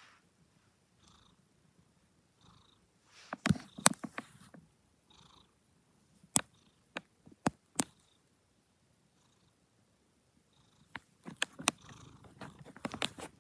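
Domestic cat purring softly, the purr swelling with each breath about once every second and a bit. Sharp clicks and knocks come and go over it, loudest around four seconds in and again near the end.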